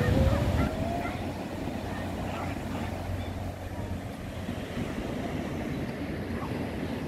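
Steady wash of small waves breaking on the shore, with wind buffeting the microphone in the first second. A faint tone rising in pitch fades out about a second in.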